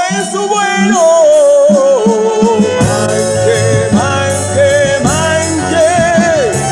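Patagonian folk band music: a lead melody that slides between notes with vibrato, over bass and percussion.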